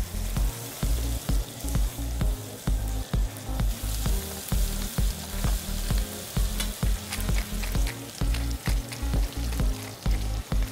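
Tuna steaks searing in hot olive oil with sliced garlic in a frying pan, sizzling steadily with many small spits and pops. Under it runs background music with a steady bass beat of about two pulses a second, the loudest sound.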